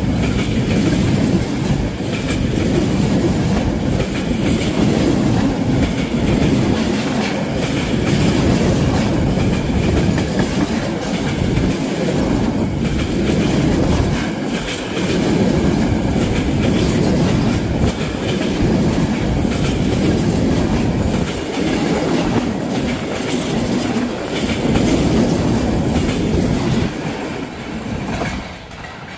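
A freight train's empty flat wagons rolling past close by, their wheels clattering steadily on the rails. The sound falls away near the end as the last wagon goes by.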